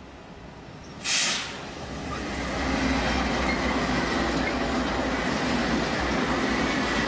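Lead diesel-electric freight locomotives passing close by, their engines and wheels rumbling steadily on the rails, with a faint high steady whine over the rumble. A short, sharp hiss about a second in is the loudest moment.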